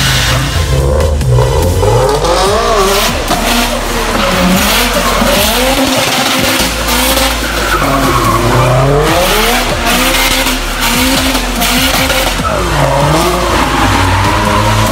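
Subaru WRX STI's turbocharged flat-four engine revving up and down again and again as the car spins donuts on wet pavement, its tyres skidding.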